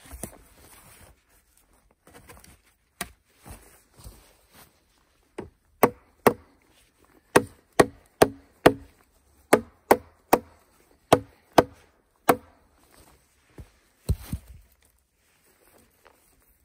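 Hard strikes of a tool on wood: a few light knocks, then a quick run of about fifteen sharp, ringing blows at roughly two a second, and two more a little later.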